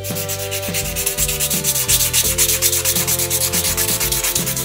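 Sandpaper scrubbed rapidly back and forth over the hard lacquer coat of a wooden fishing lure: a fast, even, scratchy rasp of several strokes a second, getting more vigorous about a second in. It is an abrasion test of the thick lacquer.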